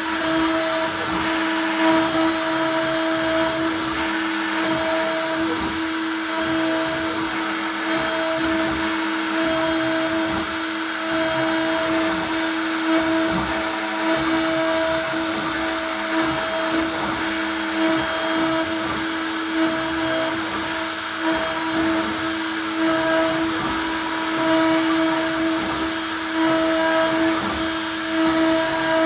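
CNC router spindle running under load as it carves wood: a steady motor whine with a rough cutting noise that rises and falls as the bit moves.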